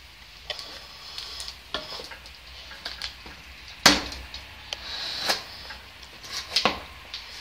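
Scissors clicking and scraping at the top of a cardboard box, with scattered taps against the cardboard and one sharp knock about four seconds in.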